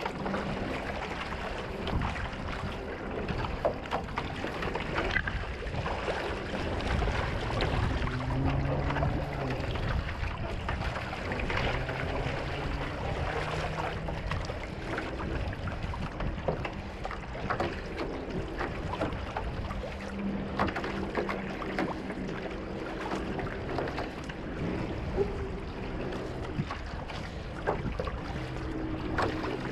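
Water splashing and rushing along a one-person outrigger canoe's hull as a single-blade paddle dips in stroke after stroke, with wind on the microphone. A faint low hum comes and goes.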